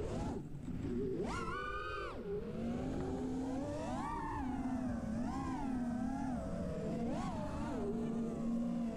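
Brushless motors of a 6S freestyle FPV quadcopter (T-Motor F40 Pro IV 1950kv with Ethix P3 props) whining in flight. The pitch jumps high on a throttle punch about a second and a half in, then rises and falls again and again with the throttle, over low wind rumble on the onboard camera's microphone. The quad is flying on what its pilot calls a bad PID tune.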